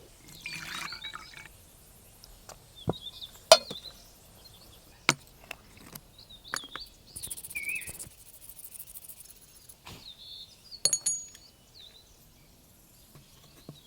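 Scattered sharp clinks and taps of hard objects being handled, the loudest about three and a half seconds in, with small birds chirping repeatedly in the background.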